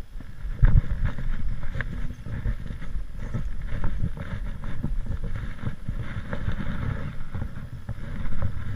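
Wind buffeting a head-mounted GoPro's microphone: an uneven low rumble, with a couple of sharp knocks in the first two seconds.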